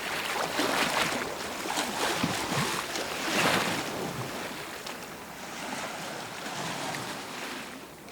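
Beach ambience: ocean surf washing ashore, with several louder surges of breaking waves in the first four seconds, then softer swells.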